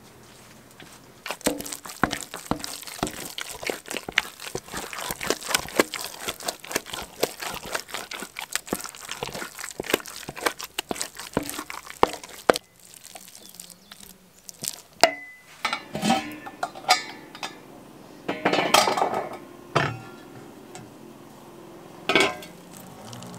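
Wooden spoon beating and stirring thick keşkek, a wheat-and-meat mash, in a large steel pot: fast, continuous knocking against the pot for about eleven seconds. Then come slower, scattered knocks and clinks of metal pot and dishware as the mash is spooned out.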